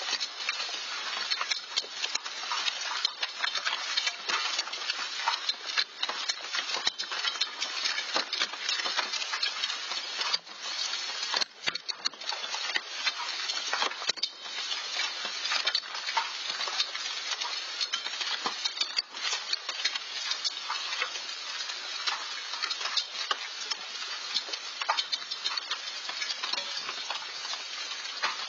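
Hailstorm: hailstones pelting down in a dense, unbroken clatter of countless small ticks, picked up through a Nest outdoor security camera's microphone.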